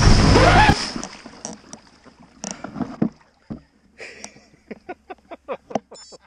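Loud splash as a mountain bike's front wheel plunges into a muddy puddle and digs in, over background music that cuts off about a second in. After it come scattered knocks and rustling of the bike and mud as it stops, then a quick run of short sounds near the end.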